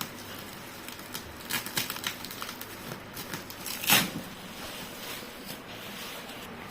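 Packaging being handled: crinkling and rustling with scattered small clicks, and one sharp knock about four seconds in.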